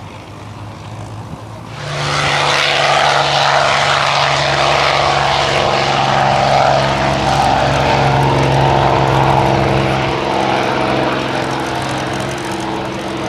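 Piston propeller aircraft engine running close by, a loud steady drone that comes in suddenly about two seconds in and eases off slightly near the end.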